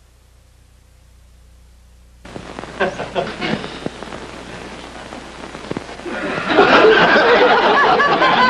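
A low steady hum, then about two seconds in a crowd of many voices starts chattering and chuckling, getting much louder and denser about six and a half seconds in.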